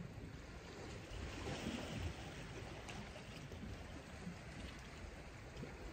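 Steady wash of calm sea water against the rocks, with a low rumble of wind.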